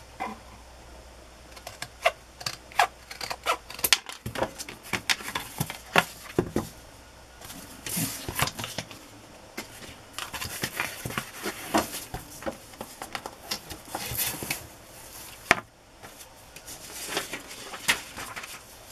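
Paper and card being handled on a cutting mat: irregular rustling, sliding and light taps as a brown paper spine strip and old book cover boards are picked up, laid down and smoothed flat by hand.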